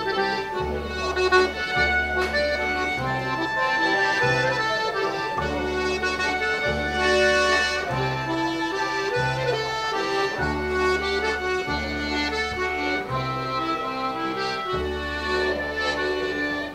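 A small folk ensemble playing traditional dance music on fiddle, clarinet, mandolin and accordion. The accordion's bass keeps a steady alternating beat under the melody.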